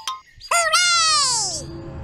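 Cartoon sound effect: a tone with many overtones starts suddenly about half a second in and slides down in pitch for about a second, then fades into a faint steady hum.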